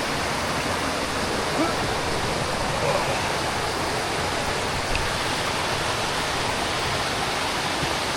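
Steady rush of flowing water from a mountain stream along the trail.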